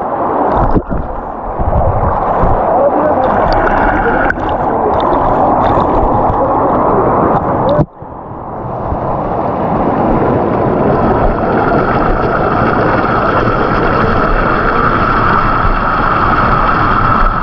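Waterfall pouring, a steady loud rush of water noise, broken by a brief dropout about eight seconds in before it carries on.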